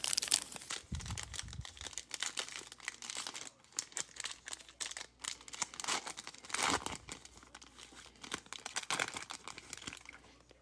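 Foil Optic trading-card pack wrapper crinkling and tearing as it is ripped open by hand, a quick run of crackles with louder bursts at the start, a little past the middle and near the end.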